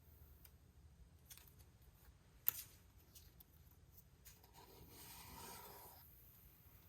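Faint handling sounds of protective plastic film being peeled off a new iMac: a few light clicks, one sharper tap about two and a half seconds in, and a soft plastic rustle about five seconds in.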